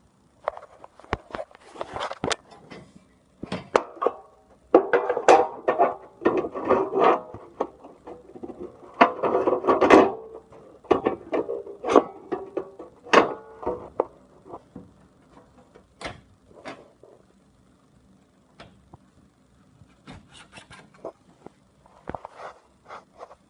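Hands working on an LCD TV panel and its frame with foam padding: scattered clicks and taps, with stretches of rubbing and scraping through the first half, then sparser clicks.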